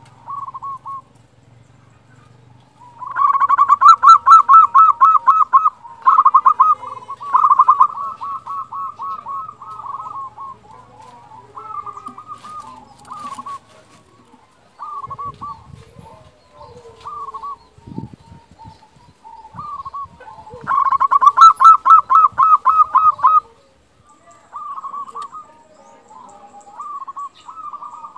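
Local zebra dove (perkutut) cooing: long runs of rapid, staccato coos about three seconds in and again about twenty-one seconds in, with shorter, quieter coo phrases between them.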